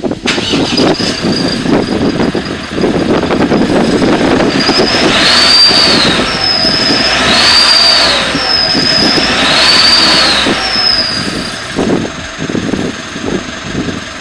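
Car exhaust fitted with an aluminium turbo whistle in the muffler tip, the engine revved three times: a high whistle rises and falls with each rev over the ordinary exhaust note. The whistle only adds a whistle and leaves the exhaust sound itself unchanged.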